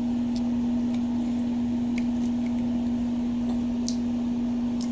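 Steady machine hum holding one low pitch, with a few faint metallic clicks from a multitool being folded and handled.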